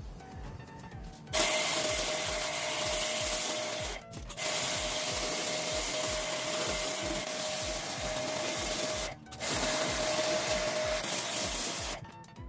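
Power sanding tool running in three long passes, with a steady motor whine, stopping briefly twice. A steady music beat runs beneath it.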